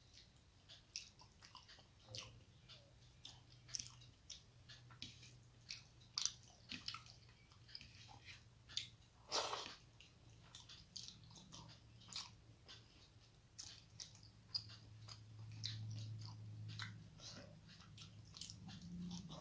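A person chewing a mouthful of rice and curry, with irregular soft mouth clicks and smacks. A low steady hum runs underneath.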